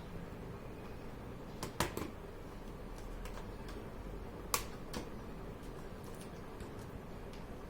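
Plastic snap clips of a laptop's bottom case popping loose as it is pried open by fingernails: sharp clicks, two close together about two seconds in and a louder one past the middle, with a few fainter ticks.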